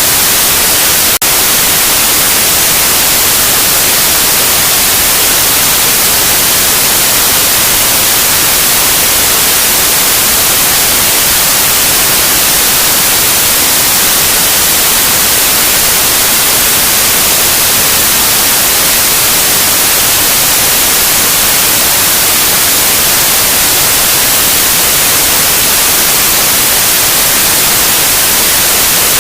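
Loud, steady white noise: an even hiss across all pitches, strongest in the treble, with a momentary dropout about a second in.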